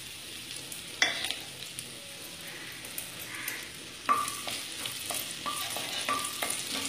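Chopped ginger sizzling in hot ghee in a non-stick kadai while a wooden spatula stirs it. From about four seconds in, the spatula taps and scrapes against the pan in a quick run, about three times a second.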